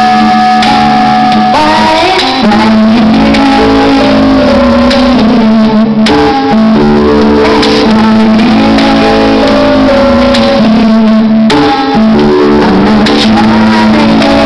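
Live music with guitar, played loud, with held notes changing pitch every second or so.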